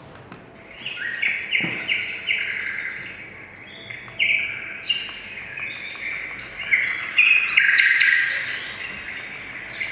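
Birdsong nature sound from a DER7W sunrise alarm clock's sound machine: a stream of short, quick chirps that starts about a second in.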